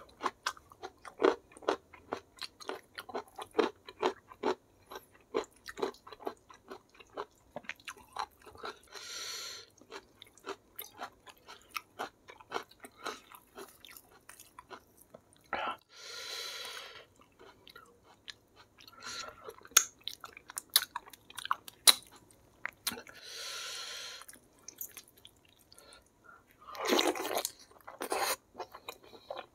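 Close-up eating sounds: a person chewing chicken in spicy rica-rica sauce with rice, eaten by hand, with many quick wet mouth clicks. Four hissing sounds, each about a second long, stand out.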